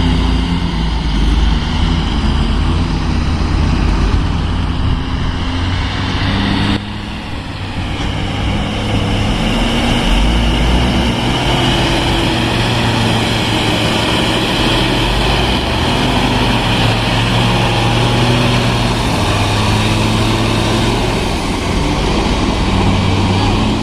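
Heavy diesel engine of earthmoving machinery running steadily, with a brief drop in level about seven seconds in.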